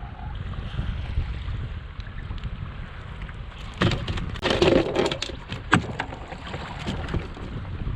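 Wind buffeting the microphone on a kayak in choppy water, a steady low rumble. About four to six seconds in comes a short cluster of sharp knocks and clatter.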